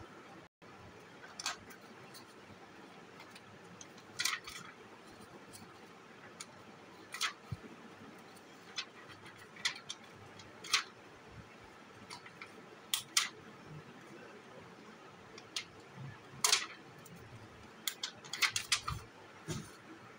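Short, irregular rustles and taps of paper being handled as round stickers are peeled and pressed onto a journal page, about a dozen scattered through the stretch.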